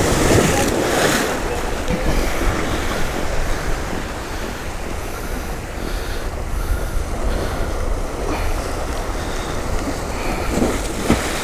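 Surf breaking and washing over shoreline rocks, with one wave crashing loudly about a second in, over a steady low rumble of wind on the microphone.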